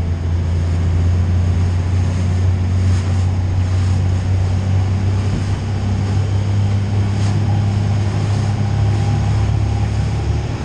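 Fishing boat's engine running steadily under way, a deep, even drone heard from inside the wheelhouse, with hull and water noise over it.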